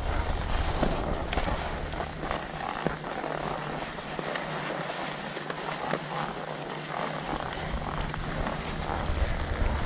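Skis sliding over packed, groomed snow: a steady scraping hiss. Wind rumbles on the microphone, easing off in the middle.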